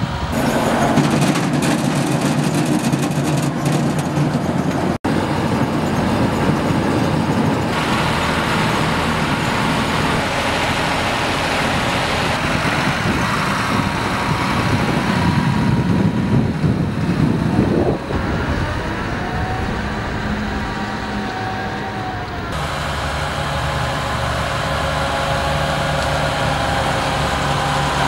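Fendt tractor's diesel engine running under load as it moves off with a potato planter, heard across several spliced clips. The engine pitch rises shortly before a cut about two-thirds of the way through.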